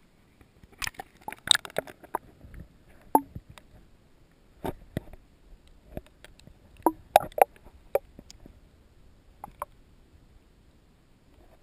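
Water sloshing and gurgling around a GoPro camera held just under the surface, with irregular sharp clicks and knocks. The loudest cluster of knocks comes about seven seconds in, and the sound thins out over the last couple of seconds.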